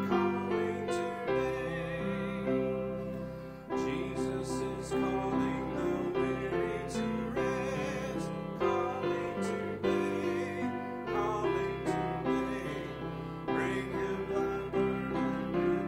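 A hymn: a keyboard instrument plays sustained chords that change every second or two, with voices singing along.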